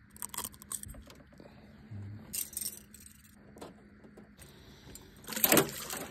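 Light metallic clicks and jingling from pliers and treble hooks as a lure is worked out of a northern pike's mouth, then a splash about five and a half seconds in as the pike drops back into the lake.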